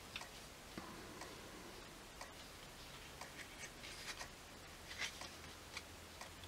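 Faint, scattered light taps and rustles of paper sheets being lifted and turned over in a pad of printed papers, the loudest about five seconds in.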